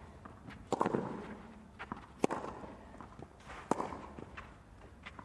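Tennis rally on a clay court: three sharp racket strikes on the ball about a second and a half apart, with softer ball bounces and players' footsteps on the clay between them.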